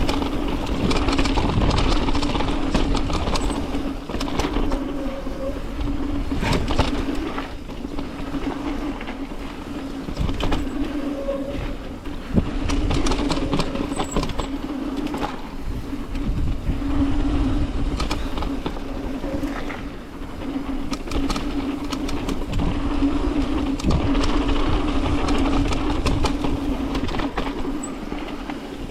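Mountain bike descending a dirt jump trail: steady rushing tyre-and-ride noise with a constant hum and scattered knocks and rattles from bumps and landings.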